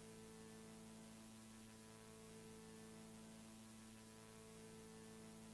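Near silence with a faint, steady hum under light hiss.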